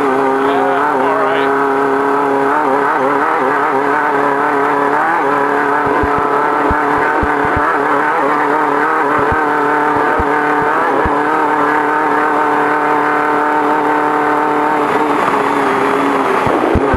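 Off-road race car's engine running hard at steady high revs, with scattered sharp knocks. The revs shift briefly near the end.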